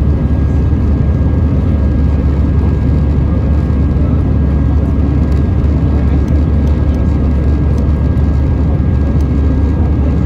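Steady in-flight cabin noise of an Airbus A319: engine and airflow noise making a constant low drone, with a thin steady high tone over it.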